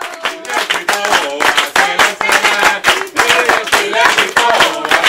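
A group of children and adults clapping their hands along to a girl singing into a microphone, with other voices singing or chanting along.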